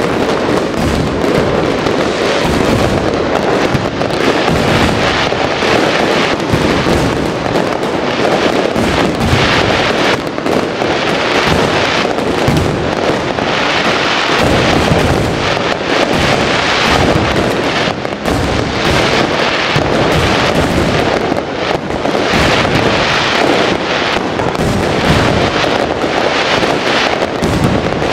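Fireworks display: a continuous barrage of overlapping shell bursts and crackle, with no break.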